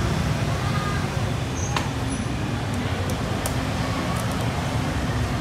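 Steady road traffic noise, a low rumble of passing vehicles, with a few light clicks about two and three and a half seconds in.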